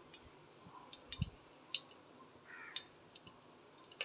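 Faint, scattered light clicks and taps of kitchen handling around a pressure cooker on the stove, with a soft thump about a second in and a brief chirp about halfway through.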